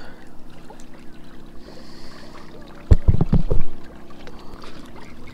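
Small inflatable pontoon kickboat moving on the water as it is kicked along with fins. About three seconds in comes a short cluster of heavy low thumps, the loudest sound, lasting under a second.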